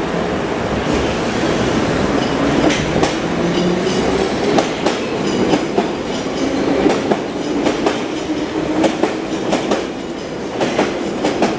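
London Underground Piccadilly line 1973 Stock tube train accelerating past, its traction motor whine rising in pitch twice, with the wheels clicking steadily over rail joints.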